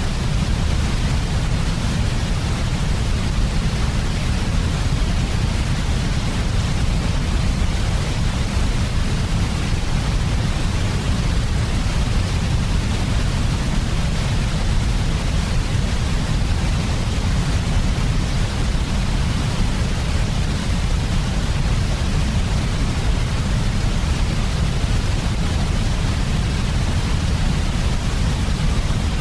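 Steady white noise for sleep: an even, unchanging hiss with a stronger deep rumble underneath.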